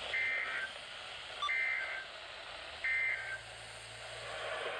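Three short bursts of NOAA Weather Radio SAME digital data tones, each a buzzy two-tone warble near 2 kHz, about a second and a half apart, over radio hiss. Coming straight after the end of a marine weather statement, they are the end-of-message code that closes that alert.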